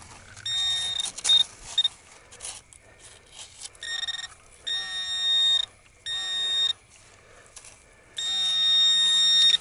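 Minelab Equinox 800 metal detector giving target tones as the coil passes over a buried target. There are a few short beeps in the first two seconds, then longer tones, and the longest and loudest, about a second and a half, comes near the end.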